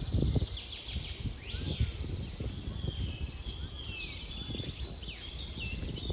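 Small birds chirping and twittering, several short calls overlapping, over a low irregular rumble.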